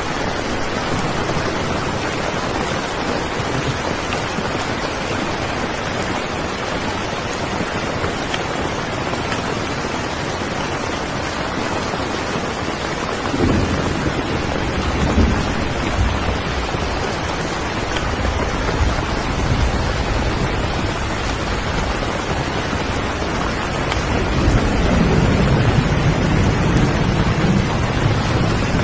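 Steady rain falling, with low rolling thunder rumbling in about halfway through and again near the end.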